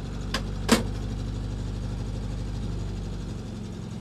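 1974 International Scout Terra's engine idling steadily, just revived after sitting for a long time. Two sharp knocks come near the start, about half a second apart, the second louder.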